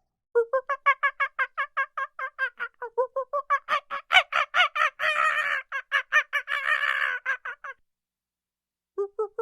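Domestic fowl calling in a fast run of short, repeated notes, about five a second, breaking off near the end and then starting again.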